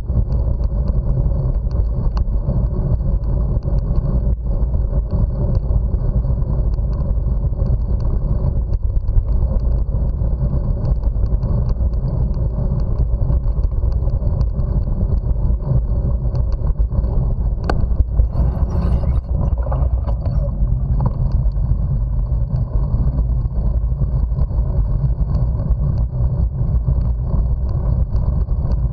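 Steady low rumble of wind buffeting the microphone and tyres rolling over a rough paved bike path while cycling, with a brief click and rattle about eighteen seconds in.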